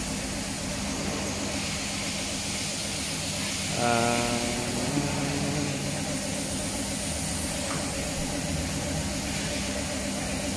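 Air spray gun hissing steadily as black paint is sprayed onto a car fender, over a steady low hum. About four seconds in, a short pitched hum rises above the hiss for about a second.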